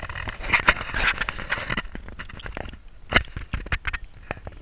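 Walking on a tarmac path: scuffing footsteps with irregular scraping, rustling and clicks. It is busiest for the first two seconds, then sparser, with one sharp knock a little over three seconds in.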